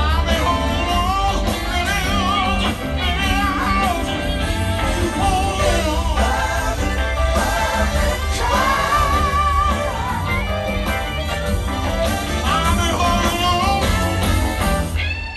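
Live rock band playing through a concert PA, heard from the crowd: a lead voice sings with vibrato over electric guitars, keyboards, drums and heavy bass.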